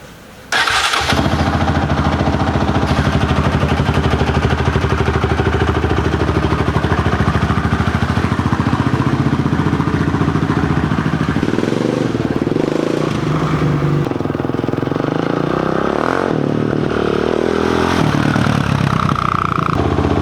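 Motorcycle engine starting about half a second in, then running steadily, its pitch rising and falling a few times in the middle. The bike has just been repaired after refusing to run.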